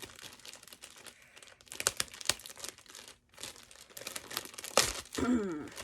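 Plastic packaging crinkling and rustling as it is handled, with a few sharp crackles.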